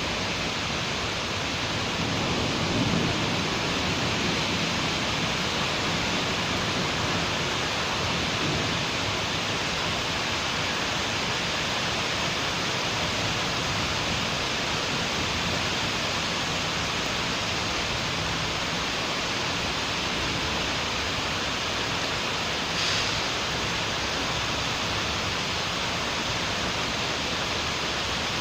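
Steady rain falling in a city street, an even hiss throughout, with a short low swell a few seconds in.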